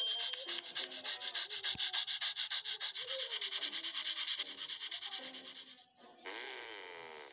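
Rapid, even scraping sound effect from the cartoon game, about ten rasping strokes a second, which stops about six seconds in; a short, different rushing noise follows near the end.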